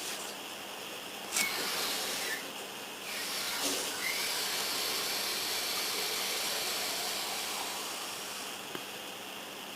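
Steady hiss, with a few light taps and knocks in the first four seconds and a small click near the end.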